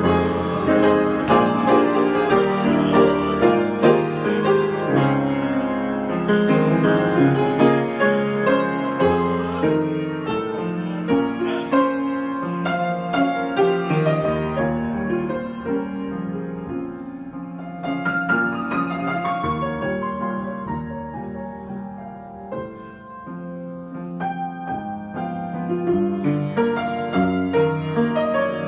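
Solo piano improvisation: dense runs and chords that thin out and soften about halfway through, then build back up to fuller, louder playing near the end.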